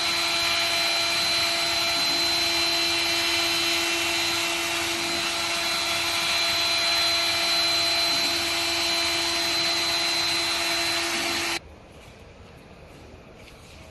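A steady whir from an electric motor, with a constant hum pitch, that cuts off abruptly near the end, leaving only a faint background.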